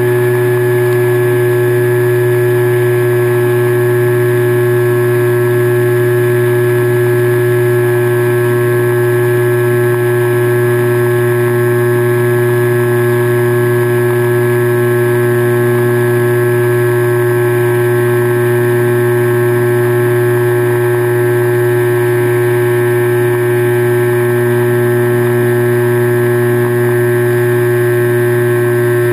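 Motor of a radio-controlled aircraft carrying the camera, running at a steady cruising speed: a loud, constant drone whose pitch barely changes.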